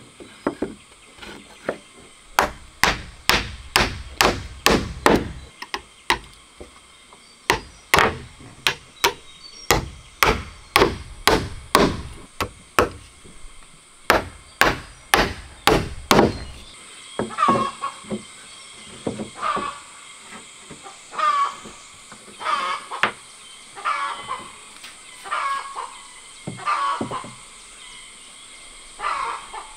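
Hammer driving nails into wooden slats: sharp strikes about two a second, in three runs with short pauses, stopping a little past halfway. After that come softer short sounds about once a second.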